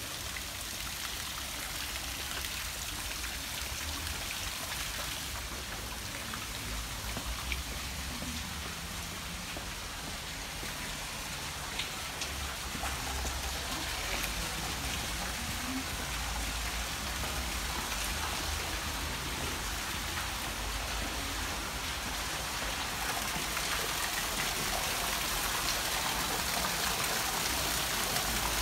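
Steady hiss of falling water, getting slightly louder towards the end, with an uneven low rumble underneath.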